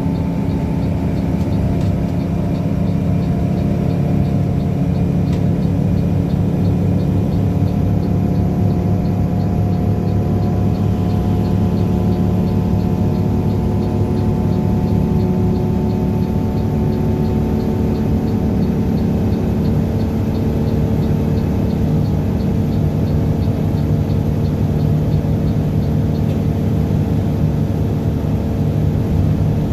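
Front-engined coach's diesel engine running steadily under way, heard from inside the passenger cabin, with road noise beneath it. A faint, regular ticking runs through most of it.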